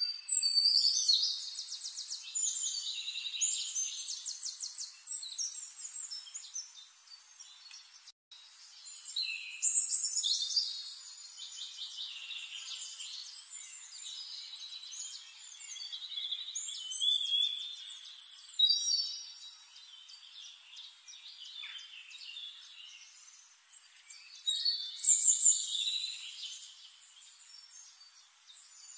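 Small birds singing: rapid high-pitched chirps and trills that come in several loud bouts with quieter spells between, and a brief drop-out about eight seconds in.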